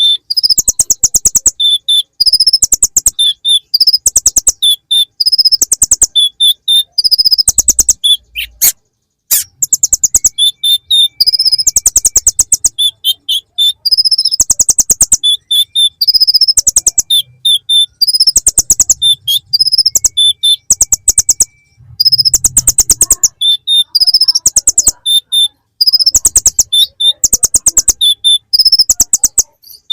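Kolibri ninja (konin) sunbird song full of bar-winged prinia (ciblek) imitations. Rapid, high, buzzing trills of tightly spaced notes alternate with short high whistled notes, repeating about every second or two with barely a pause.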